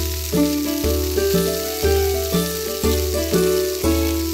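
Background music with a steady beat, over the steady hiss of oil sizzling in a miniature frying pan.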